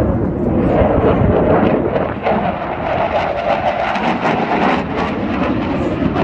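Jet noise from a fighter aircraft in an airshow display flight: a loud, continuous engine rumble and roar that dips slightly about two seconds in and then swells again.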